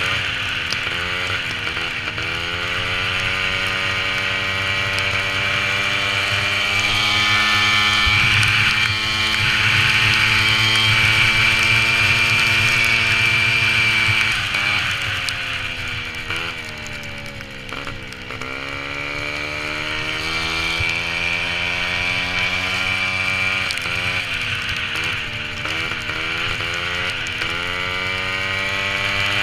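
VéloSolex moped's small two-stroke engine running hard, heard from the rider's helmet camera. Its pitch holds high, sags for a few seconds past the middle, then climbs back, with a few shorter dips near the end.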